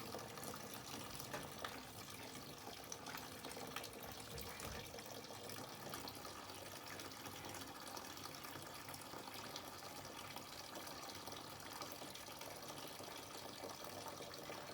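Water running steadily out of an opened, backed-up clothes-dryer vent line, with a few faint drips. The water is condensed moisture trapped in the sagging, weighed-down vent line.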